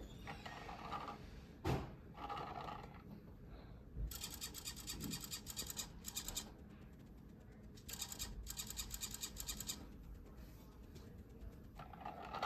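Hobby servo driving a 3D-printed plastic dragon jaw, chattering it rapidly up and down as a hand comes near the sensor: short bursts of whirring early on, then two longer runs of fast, even ticking about four and eight seconds in. One sharp click near two seconds in.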